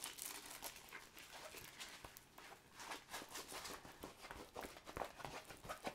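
Soft, irregular rustling and small crackles of a diamond painting canvas being handled and rolled up by hand.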